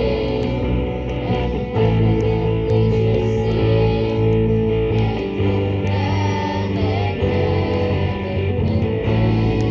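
A live band playing, with electric bass and electric guitar: long held chords over bass notes that change every second or two.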